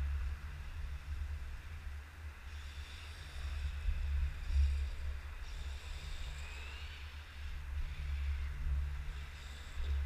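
Low wind rumble buffeting the camera microphone. From about two and a half seconds in, the faint high whine of RC cars' motors running on the track comes and goes, with one short rising whine near the middle.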